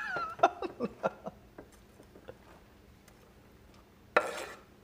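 Kitchen knife clicking and scraping on a wooden cutting board as chopped red onion is gathered up, then a short rattling rush about four seconds in as the onion pieces slide off the board into a frying pan.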